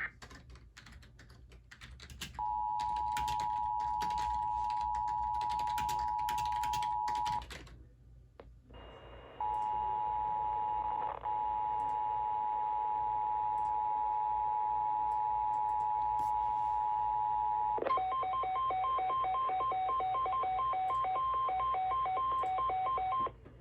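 Emergency Alert System two-tone attention signal, a steady pair of pitches sounding for about five seconds, then again for about eight seconds after a short gap. It gives way to about five seconds of a fast pulsing alert tone switching between two pitches, with faint clicks in the first few seconds.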